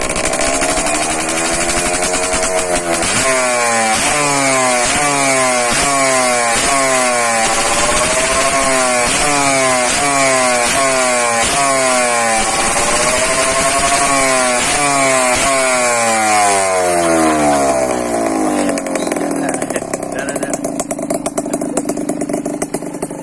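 Motorcycle engine with an aftermarket exhaust pipe being revved: one slow rev up and down, then a long run of quick throttle blips, each rising and falling in pitch about twice a second. Near the end the revs drop away and the sound fades.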